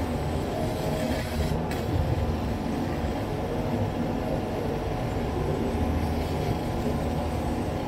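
Bodor laser cutting machine running as it cuts leather: a steady mechanical hum and rumble.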